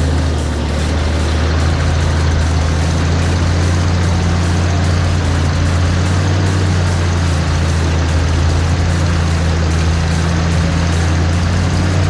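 1969 Oliver 1650 industrial backhoe's engine running steadily at an even, unchanging pitch.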